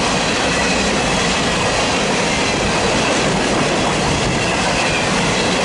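Union Pacific work train rolling past close by, a steady loud rumble and rattle of its wheels running on the rails.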